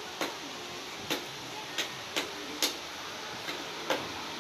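Hand stitching of a shoe: about six sharp, irregular clicks and snaps over four seconds as the needle and thread are worked through the shoe's upper and pulled tight.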